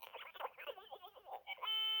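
Glitching Furby (2001 re-release) talking through its small speaker in garbled, warbling voice-like chatter, which suddenly locks into a steady, held buzzing tone near the end. The glitch comes from its batteries being disconnected and reconnected.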